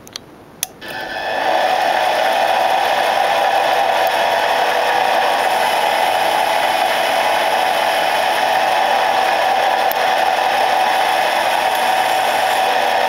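Small bench lathe started up: two sharp clicks, then the motor and spindle spin up within about a second and run steadily with a whine, while a tool faces the end of an aluminium bar.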